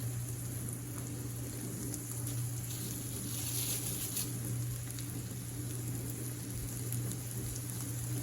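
Eggs frying in a pan on the stove, sizzling steadily, with a constant low hum underneath.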